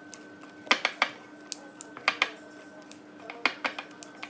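A spoon stirring thick brownie batter in a ceramic mixing bowl, knocking sharply against the side of the bowl about seven times at irregular intervals, with a faint steady hum underneath.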